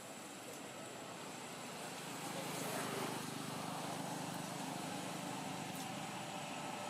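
Steady engine noise, like passing motor traffic, growing louder a little over two seconds in and then holding.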